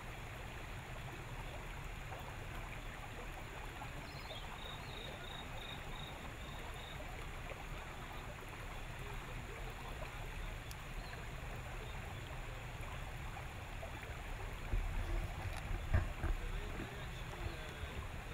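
River water lapping and trickling against the hull of a small open wooden boat, with a low rumble underneath. A short run of evenly spaced high notes about four seconds in, and a few dull bumps near the end.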